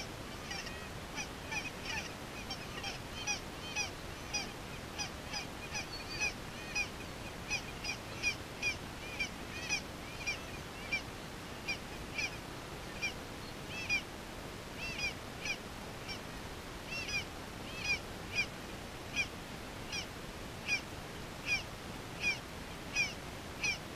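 Goose calling: a long run of short, high-pitched yelps, about one to two a second, at an uneven pace.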